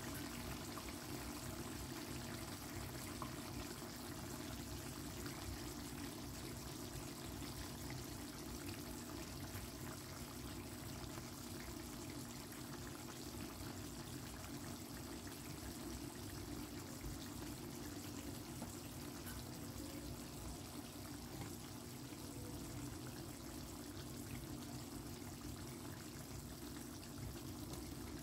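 Curry chicken simmering in a pot, the gravy bubbling steadily.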